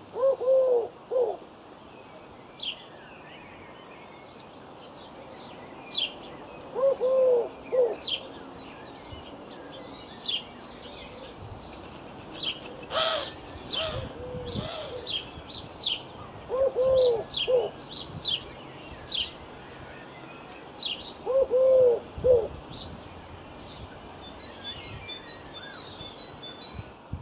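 Birds chirping, with a low call repeated about five times, several seconds apart.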